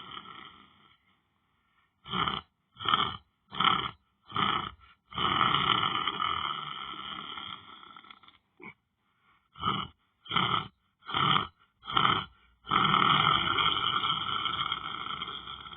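Loud snoring: a long rasping breath fading out, then four short snorts about two-thirds of a second apart, a second long breath, another run of short snorts, and a third long breath near the end.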